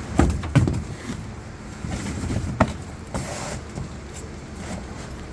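Low steady vehicle rumble with a few sharp knocks and thumps, the loudest about half a second in and another near the middle.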